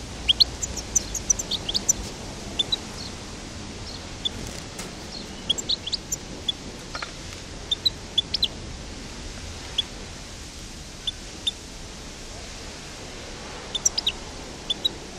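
European goldfinch of the North African parva subspecies giving short, high chirps and twitters. There are quick runs of notes in the first two seconds and again near the end, with scattered single notes between, over a steady background hiss.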